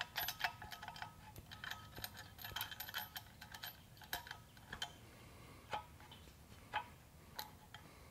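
Irregular light metallic clicks and taps of steel bolts and washers being turned by hand against the engine stand's mounting arms as they are threaded into the engine block, some with a short ring; thicker in the first few seconds, then scattered taps.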